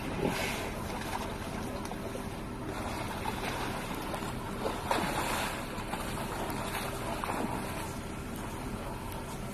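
Elephants wading through muddy water and climbing out onto the bank, with a few splashes and sloshes, over steady wind noise on the microphone.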